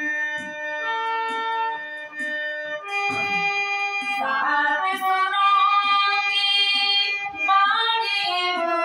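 Harmonium playing held, reedy notes of a bhajan melody. A woman's singing voice comes in over it about four seconds in and again near the end.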